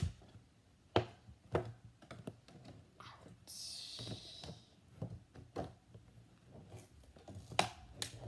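Scissors snipping at stiff plastic toy packaging: a few sharp clicks and cuts, with a short crinkling rustle of plastic about three and a half seconds in.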